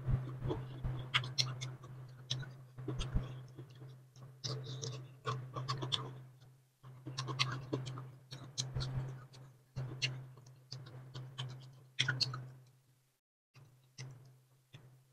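Close-miked chewing of boiled bamboo shoots: irregular wet mouth clicks and smacks, with fingers tearing the fibrous shoots apart, over a steady low hum that briefly cuts out about 13 seconds in.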